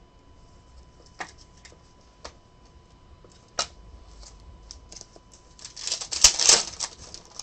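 A few sharp clicks as trading cards and plastic top loaders are handled, then a card pack's foil wrapper is torn open with a loud crinkling rip about two-thirds of the way through.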